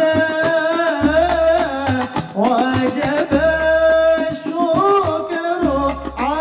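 Arabic devotional song (nasheed): a voice sings a melody that bends and glides in pitch over a deep, recurring drum beat.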